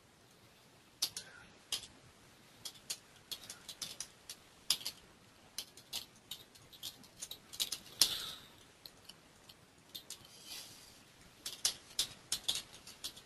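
Computer keyboard typing in irregular runs of key clicks, mixed with a few mouse clicks. The clicks start about a second in.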